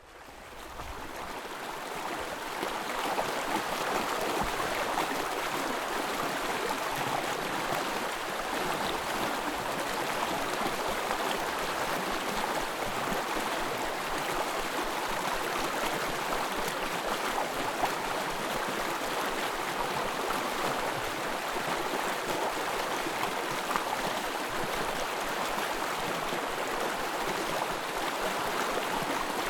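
Small forest stream running and babbling steadily, fading in over the first few seconds.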